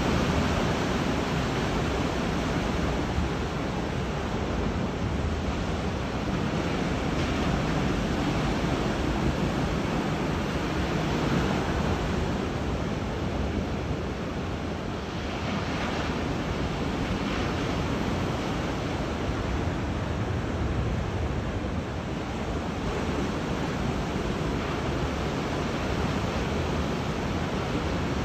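Sea waves washing onto a beach in a steady surf, with wind on the microphone.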